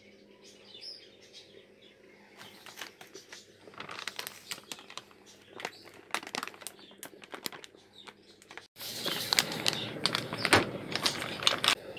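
Plastic packaging bag crinkling and rustling in the hands, with scattered crackles, as flour and cornmeal are tipped into a plastic bowl. The rustling turns louder and denser for the last few seconds.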